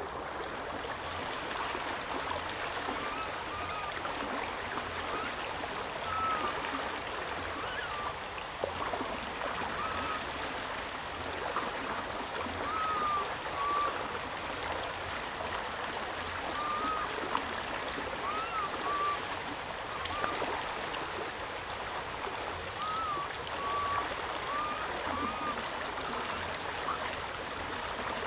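A steady rush like running water, with short chirps that rise and fall every second or two.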